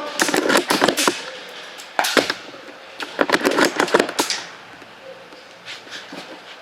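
Airsoft guns firing in rapid bursts of sharp clicks: three bursts, the longest about a second, then it goes quieter.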